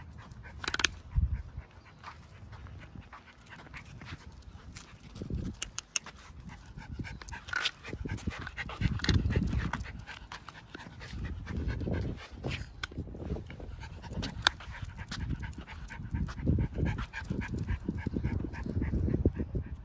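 Miniature schnauzer panting on a walk, with scattered light clicks and swells of low rumble.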